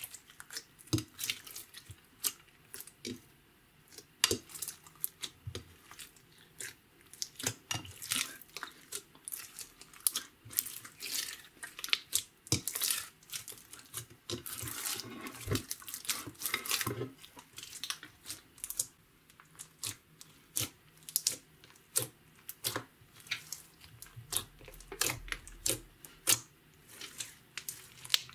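Hands squishing, folding and stretching blue glitter slime, a mix of clear slime, makeup and glitter. It makes irregular wet squelches and sharp clicks and pops as air pockets burst, with a denser run of squelching around the middle.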